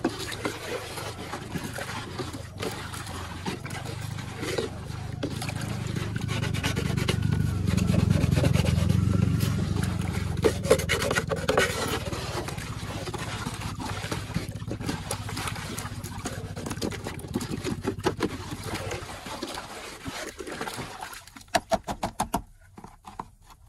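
Water sloshing as a small plastic bottle is worked in a basin of muddy water, under a low rumble. Near the end comes a quick run of glugs as the submerged bottle fills and air bubbles out.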